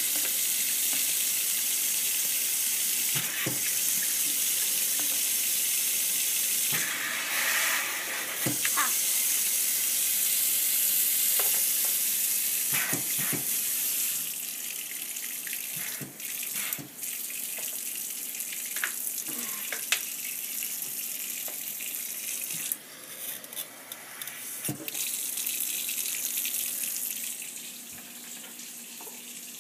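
Kitchen tap running into a stainless steel sink and filling a plastic bottle, a steady rush of water with scattered clicks and knocks. The water gets quieter about halfway through.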